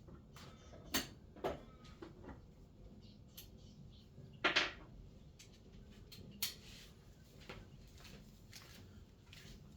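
Scattered light clicks and knocks of small metal parts and hand tools being handled on a workbench while rod bolts are fitted, with two louder knocks about a second in and about four and a half seconds in.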